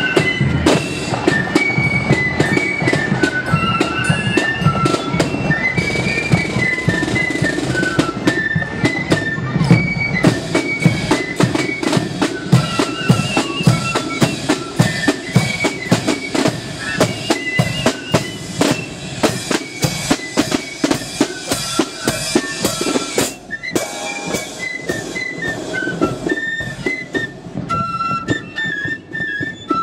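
Marching flute band playing a tune: a line of flutes carries a high, stepping melody over snare drums and a steady bass drum beat.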